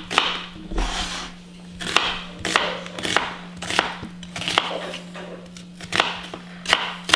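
Chef's knife slicing an onion on a wooden cutting board, each cut ending in a knock of the blade on the board, about one or two a second.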